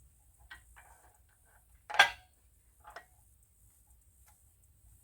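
Metal tools and fittings clinking while a hydraulic hose fitting is connected: a few light clicks, one sharp metallic clank about two seconds in, and a smaller one about a second later.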